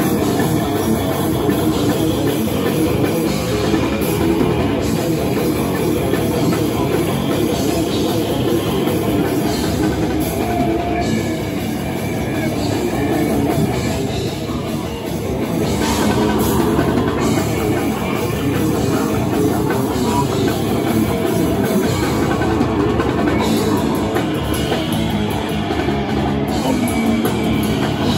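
Heavy metal band playing live at full volume: a fast drum kit, distorted electric guitar and bass guitar, with vocals over them.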